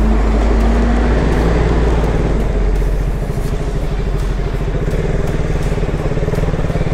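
Motorcycle engine running at low revs, a steady pulsing rumble heard from the rider's seat.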